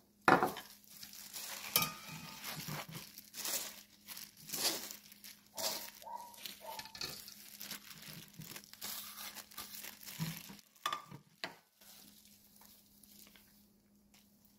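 Irregular crinkly rustling of fresh lettuce leaves and sliced onion being handled and tipped into a stainless steel mixing bowl, with a few sharp clicks; it thins out over the last few seconds.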